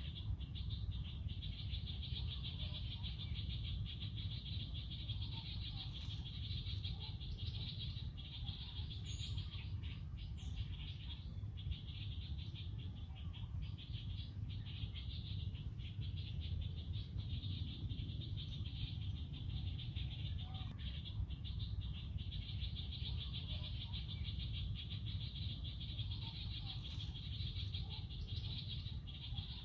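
Forest ambience: a steady, high-pitched insect chorus, with a few short, very high bird chirps over a low rumble.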